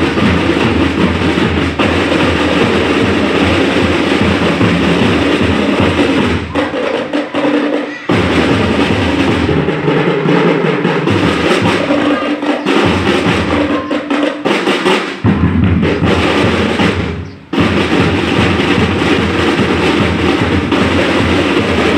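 Drum and lyre corps playing together: marching drums with bell lyres, breaking off briefly twice.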